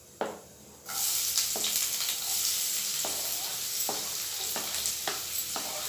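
Chopped onion dropped into hot oil in a kadhai, starting to sizzle suddenly about a second in and frying steadily, with repeated scraping strokes of a wooden spatula stirring it.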